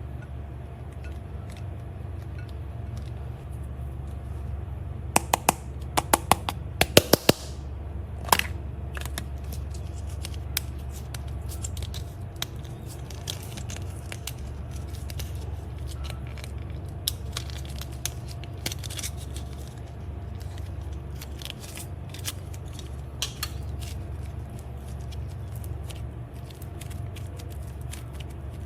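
Slime being handled, making scattered sticky clicks and crackles, with a quick run of loud snaps about five to seven seconds in, over a steady low hum.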